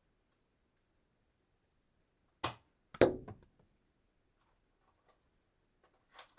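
Weapon sound effect: a sharp short hit, then about half a second later a louder, heavier impact that dies away quickly, followed near the end by two more quick sharp hits.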